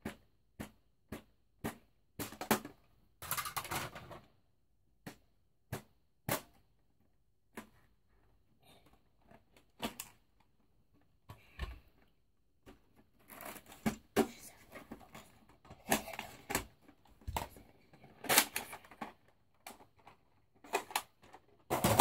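Scattered clicks, taps and rustling of things being handled, with a busier stretch of rustling and knocking in the second half.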